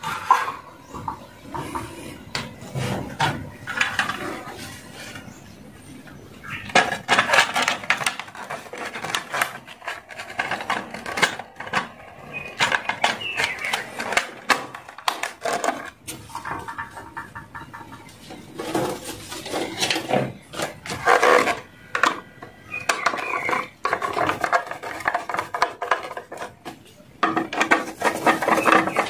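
Plastic cover of a safety breaker being fitted and screwed on: irregular clicks, taps and scrapes of hard plastic and a screwdriver against the box.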